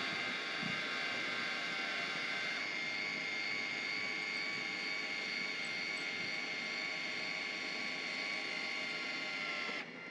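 Electric roof-lift motor of a Palomino soft-side pop-up truck camper running with a steady whine as the roof rises. The tone shifts slightly about two and a half seconds in, and the motor stops near the end.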